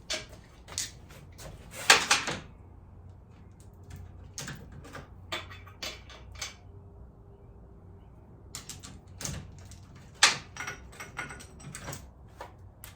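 Hand tools and sockets clinking and knocking against metal as bolts are worked on a motorcycle frame, in irregular sharp clicks, the loudest about two seconds in and again about ten seconds in.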